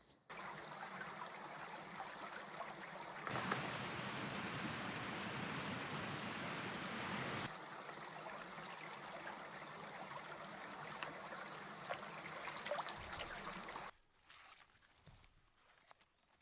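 Running water rushing steadily, starting suddenly, louder for a few seconds in the middle, then cutting off near the end.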